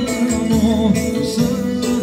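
Albanian wedding-band music: an electronic keyboard plays an ornamented, wavering melody over a steady percussion beat.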